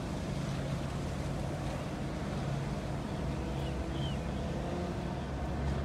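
Steady low engine drone with a constant hum, as of vehicle engines running, and a faint short chirp about four seconds in.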